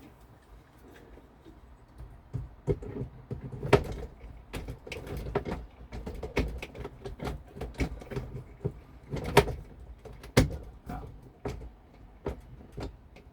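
Irregular sharp metallic clicks and knocks of a hand rivet tool working on a bimini frame while rivets are set, with a few louder snaps about 4, 9 and 10 seconds in.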